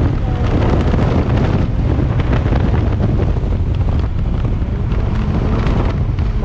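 2006 BMW M5's V10 with a custom Eisenmann exhaust being driven at speed, its engine note faint under heavy wind noise buffeting the microphone.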